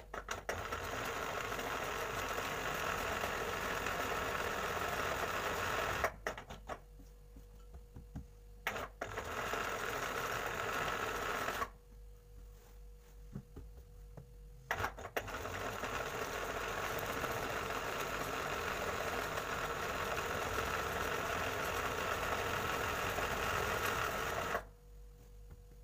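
Embroidery sewing machine stitching a patch onto fabric, run in stretches. It runs about six seconds and stops, gives a few short bursts, runs again for a few seconds, pauses for about three seconds, then runs steadily for about ten seconds and stops just before the end. A faint steady hum stays in the pauses.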